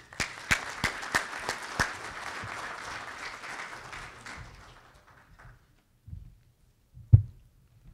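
Audience applauding, dying away about five seconds in. A single sharp thump near the end.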